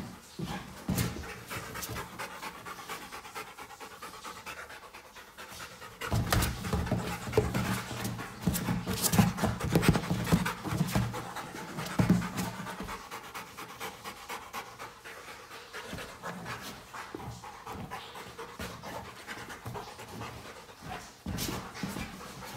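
Rottweiler puppy panting hard as it plays with an exercise ball. A louder, busy stretch of knocks and thumps in the middle as it scrambles and paws at the ball.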